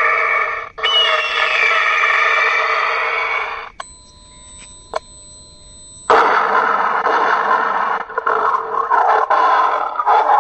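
Solar-powered animal and bird repeller's horn loudspeakers blaring recorded animal cries, meant to scare birds and squirrels away from the orchard. One loud cry runs until about four seconds in. After a short gap with only a faint electronic tone, a different, louder sound starts about six seconds in.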